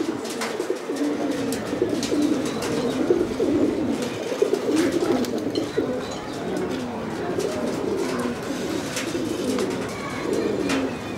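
Several domestic pigeons cooing on and off, their low warbling coos overlapping, with a few sharp clicks among them.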